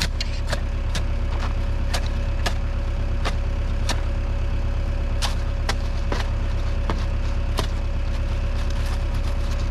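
Tractor engine running steadily, with irregular sharp clicks and clanks over the drone.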